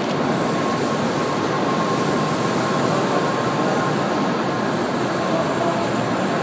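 N700-series Shinkansen train running slowly along a station platform: a steady rumble of wheels and running gear with a faint, thin, steady whine above it.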